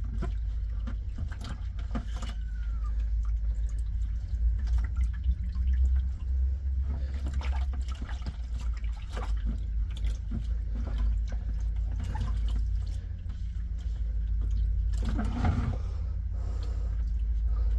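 Water sloshing, splashing and trickling in a bucket as kittens are rinsed in warm water, with irregular small splashes and knocks. A steady low hum runs underneath.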